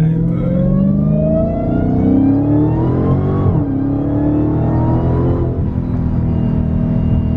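Dodge SRT V8 muscle car accelerating hard, heard from inside the cabin. The engine revs climb in second gear, drop at the upshift to third about three and a half seconds in, and climb again. Near the end they level off as the throttle is released.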